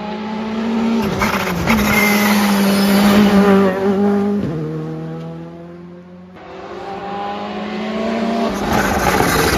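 A rally car's engine at full race speed, its pitch stepping with gear changes as it approaches, lifting and dropping pitch into the corner, passing about three seconds in and fading away. From about six seconds in a second rally car is heard approaching, getting steadily louder.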